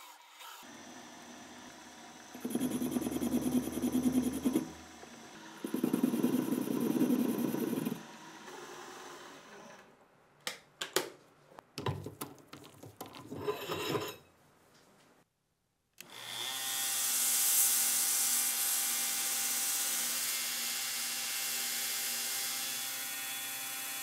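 Small bench metal lathe running with a steel tube spinning in its chuck, with two stretches of louder turning noise as the tool cuts. A few seconds of clicks and knocks follow. Then a belt sander runs steadily, grinding the steel tube held against its belt.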